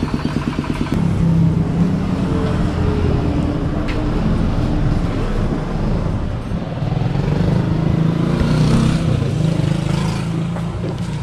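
Road vehicle engine running, its pitch rising and falling a little.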